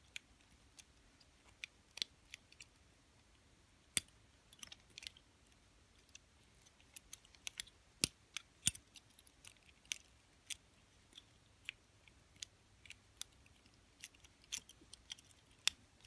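Homemade wire pick and tension tool working the levers of an antique British four-lever padlock: sparse, irregular small metal clicks and ticks, a few louder ones about four and eight seconds in.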